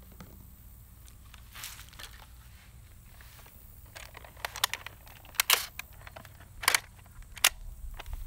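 Hard plastic clicks and clacks from a Nerf Rival Curve Shot blaster being handled and worked. There is a string of sharp clicks in the second half, several close together.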